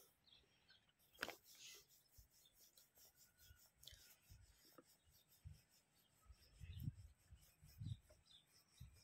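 Near silence, broken by faint rubbing and a few soft low bumps of the phone being handled against its microphone, with one sharp click about a second in.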